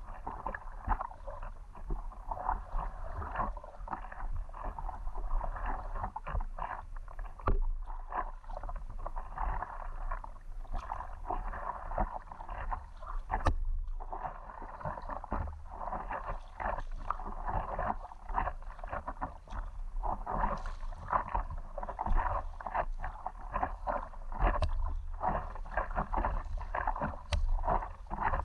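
Water splashing and lapping against an inflatable stand-up paddleboard as it is paddled, with many small irregular splashes over a steady wash of water.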